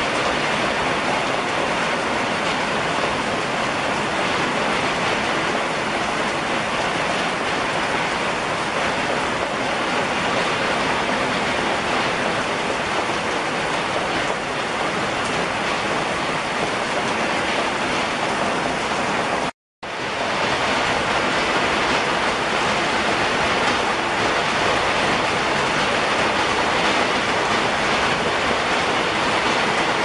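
Heavy rain pouring steadily, an even hiss that cuts out for a split second about two-thirds of the way through.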